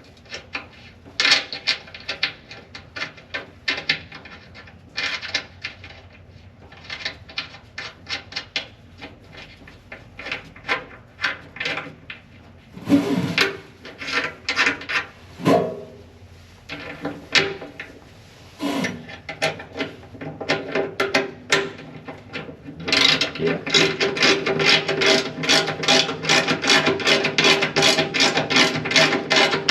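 Hand-tool work on the car: rapid rasping, clicking strokes that come in uneven runs, then turn denser and more regular for the last several seconds.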